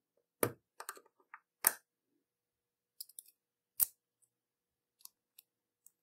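Small metal parts of a brass combination lock clicking and tapping as it is assembled by hand. There are three louder sharp clicks, about half a second, just under two seconds and nearly four seconds in, with fainter ticks between.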